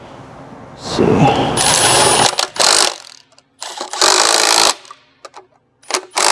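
Cordless impact driver running in several short bursts, the longest about a second in, driving in the bolts that mount a run-dry seal reservoir on a pump.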